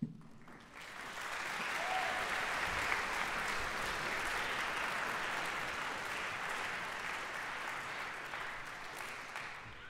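Audience applauding, building up about a second in, holding steady, then dying away near the end.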